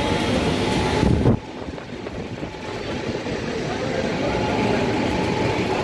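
Indistinct background noise of a busy shop with murmuring voices. The noise drops off abruptly about a second in, then slowly builds back up.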